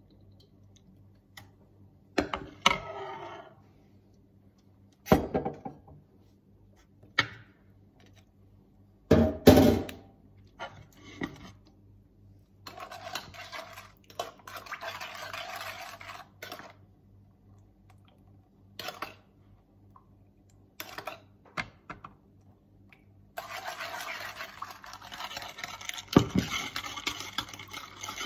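Kitchen bowls and utensils knocking and clattering on a countertop, a handful of separate clunks with the loudest about a third of the way in. There is steady hiss-like noise for a few seconds around the middle and again near the end.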